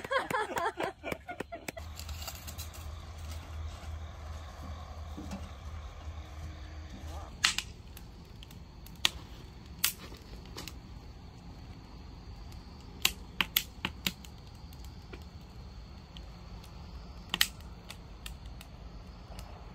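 Firewood burning in a steel fire pit, crackling with scattered sharp pops at irregular intervals, a few of them close together. Voices are heard briefly at the very start.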